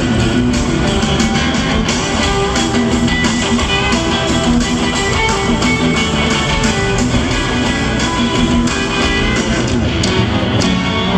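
Live country band playing loudly through an arena PA, guitar to the fore over a steady drum beat, with the echo of a large arena.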